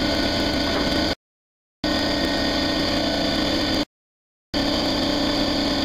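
Steady mechanical running noise with a constant hum. It cuts out completely twice, for about half a second each time, then resumes unchanged.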